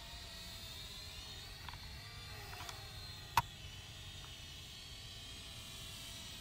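Small camera drone's propellers and motors whining steadily in flight, the pitch drifting a little. A single sharp click about three and a half seconds in.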